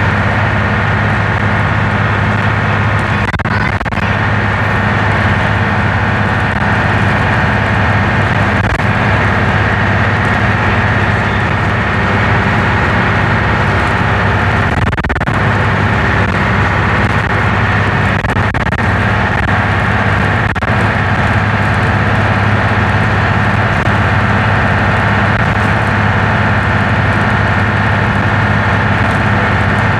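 Leyland double-decker bus's diesel engine running steadily while the bus drives along, heard from inside the bus: a loud, even drone with a steady high whine over it.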